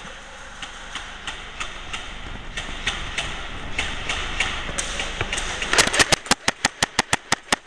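Scattered sharp clicks, then near the end a rapid, evenly spaced string of airsoft gun shots at about seven a second.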